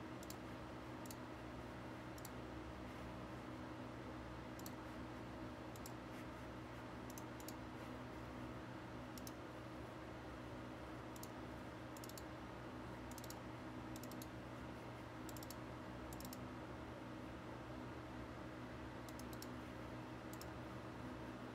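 Faint computer mouse clicks, irregular and some in quick pairs, over a steady low hum.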